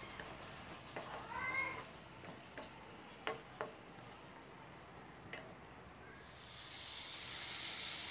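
Cauliflower and carrots sizzling in a wok with a little water just added, stirred with a wooden spatula that knocks against the pan a few times. The sizzle grows louder near the end. A short rising cry sounds about a second in.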